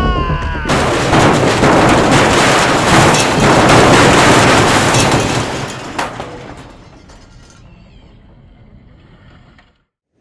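A loud, noisy boom-like hit that closes the background music. It comes in suddenly about a second in, stays loud for several seconds, then dies away slowly into silence.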